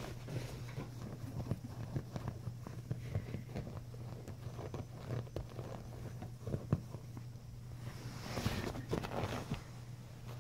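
Chinese crested puppy pawing and scratching at bedding, a busy run of soft scratches and rustles, with a louder rustle of fabric about eight seconds in.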